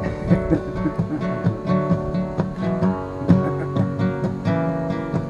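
Acoustic guitar strummed steadily in an even rhythm, chords ringing between the strokes, with no singing over it.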